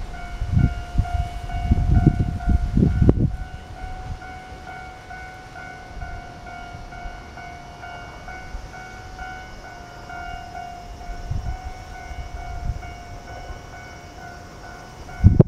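Electronic level-crossing warning bell ringing steadily, the signal that the crossing is closed for a train. Low gusty rumbles come over it in the first three seconds and again at the very end.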